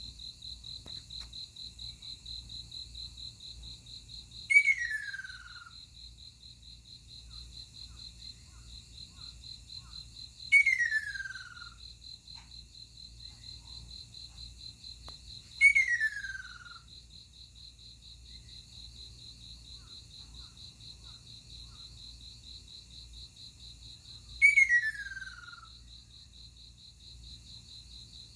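Ruddy kingfisher calling four times, each call a descending rolling trill of about a second, spaced several seconds apart. Under it a steady, rapidly pulsing high insect trill runs throughout.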